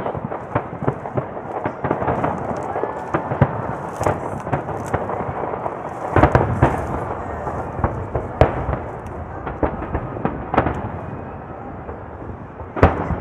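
Aerial fireworks shells bursting in quick succession, many sharp bangs close together over a continuous din. A dense cluster of loud bursts comes about six seconds in, and a single loud bang comes near the end.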